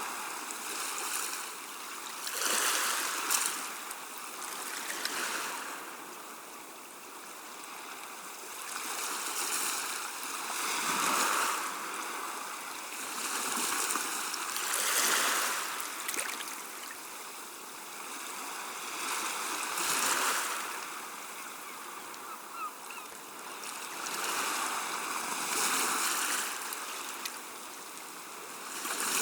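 Gentle sea waves washing in and out, a hiss that swells and ebbs every few seconds. A gull calls faintly, briefly, about two-thirds of the way through.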